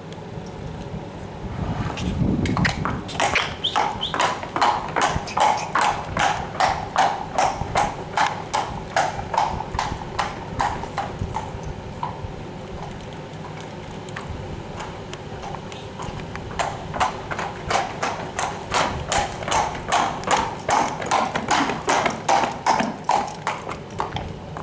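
A horse's hooves clip-clopping on brick paving in a steady rhythm as it is led along. The hoofbeats fade for a few seconds around the middle, then come back loud and close.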